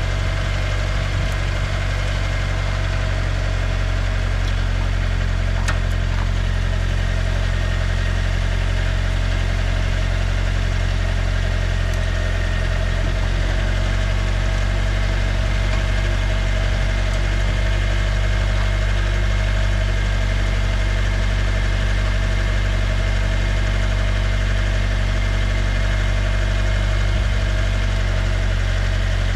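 A vehicle engine idling steadily, a constant low running note with a couple of faint clicks over it.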